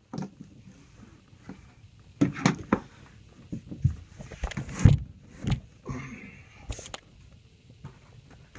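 Scattered knocks, thuds and rustling from handling, irregular and short, as the SPL meter is moved and set down in the subwoofer box's port; no bass burp is played.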